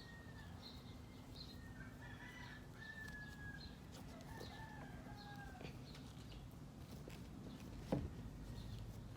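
Faint bird calls in the background: drawn-out whistled notes and short repeated chirps, over a steady low hum. A single sharp knock comes near the end.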